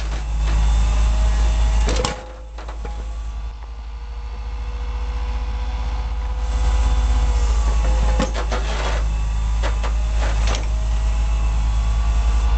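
Truck-mounted Fassi rock auger boring into solid rock: a heavy, steady low rumble from the drive, with a few clusters of sharp knocks. The rumble drops about two seconds in and builds back up over the next several seconds.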